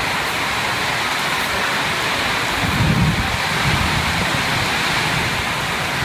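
Heavy rain pouring down in a windy storm, a steady dense hiss, with a louder low rumble about halfway through.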